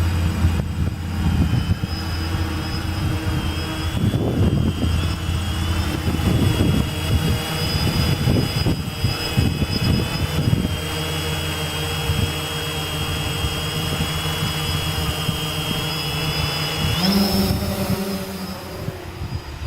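Gaui 500X quadcopter's brushless motors and propellers whining steadily in flight, their pitch stepping up briefly near the end. Gusts of wind rumble over the microphone in the middle.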